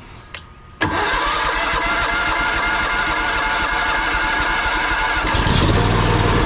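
Pressure washer engine starting suddenly about a second in and then running steadily, its sound growing fuller and deeper about five seconds in.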